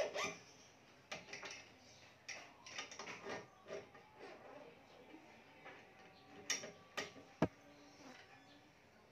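Badminton string being woven by hand through the cross strings of a racket on a stringing machine: faint scattered clicks and rubbing of string against string, with a sharper click about seven seconds in.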